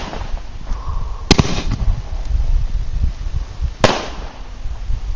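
Aerial fireworks bursting in the sky: two sharp bangs about two and a half seconds apart, with low rumbling in between.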